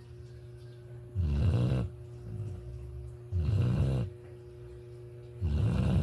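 Rhythmic snoring: three low snores, one about every two seconds, each lasting about half a second, with a softer breath between the first two.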